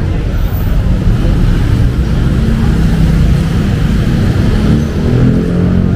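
Motor vehicle engine running close by in street traffic, a low steady hum.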